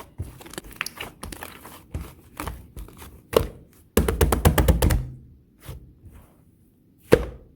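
Pink clear slime mixed with clay being worked by hand, giving sticky pops and clicks. A quick run of clicks comes about four seconds in, and a single loud pop comes near the end.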